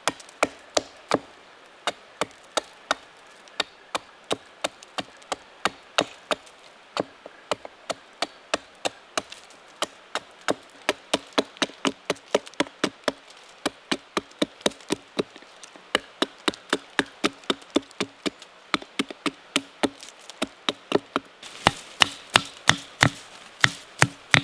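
Hatchet splitting thin sticks of kindling against a log: a steady run of short, sharp wooden knocks, about three a second. In the last few seconds the knocks come louder and closer together.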